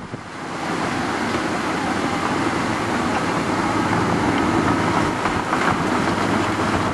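Blustery wind crackling on the microphone, swelling about a second in and then steady, with a tracked excavator's engine running underneath.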